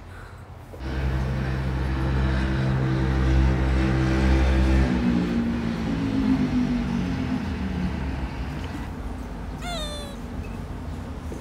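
A cat gives one short meow near the end, over a low steady hum that starts about a second in and shifts in pitch midway.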